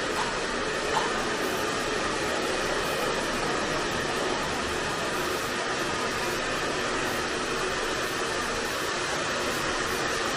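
Handheld hair dryer running steadily, blowing air over a freshly bathed dog's coat to dry it.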